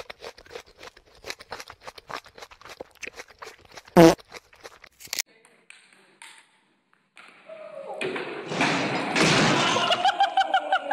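A groundhog crunching an ice cream cone: a quick run of small crunching clicks, broken about four seconds in by a short, loud, high sound. Later, a noisy stretch of voices.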